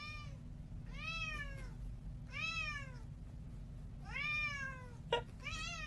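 Domestic long-haired tabby cat meowing repeatedly: five drawn-out meows about one to two seconds apart, each rising and then falling in pitch. A short click comes just before the last one.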